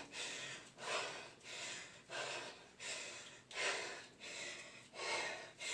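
A person breathing hard and fast through repeated burpees, short loud breaths in and out about every two-thirds of a second: heavy exertion.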